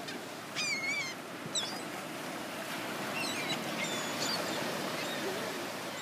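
Seagulls giving short, high, wavering calls a few times: one about half a second in, another at about a second and a half, and a cluster around the middle. A steady hiss of surf runs underneath.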